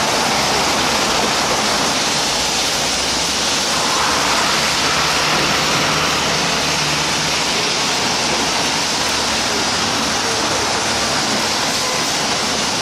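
Steady hiss of rain and traffic on a wet city street.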